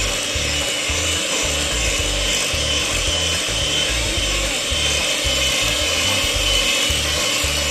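Electric hand mixer running steadily, its beaters whipping butter and condensed milk into a cream in a glass bowl.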